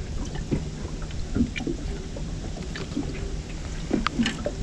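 Sounds aboard a small fishing boat: a steady low hum with scattered small clicks and knocks.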